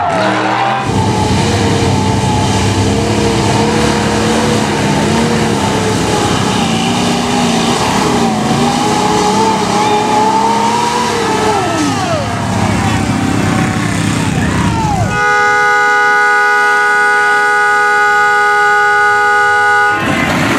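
Mud-truck engines running hard and revving, with the pitch rising and falling, then about fifteen seconds in a loud multi-tone air horn held steady for about five seconds.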